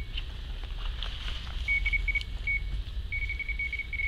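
Electronic carp bite alarm on a rod pod beeping in short runs of high beeps, which speed up into a rapid string and a held tone near the end: line being pulled through it by a fish taking the bait.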